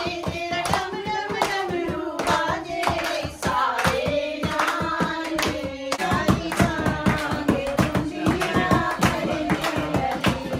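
A group of women singing a devotional song together, with a hand-played dholak drum and hand clapping keeping a steady beat.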